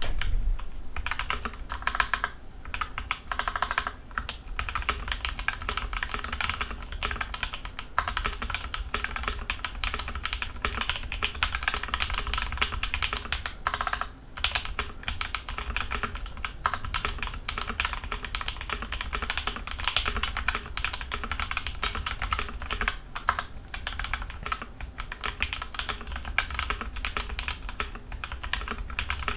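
Typing on a modified GK61 60% mechanical keyboard with lubed switches, switch films, Cherry plate-mount stabilizers and GMK keycaps: a steady stream of key clacks, with a brief pause about fourteen seconds in.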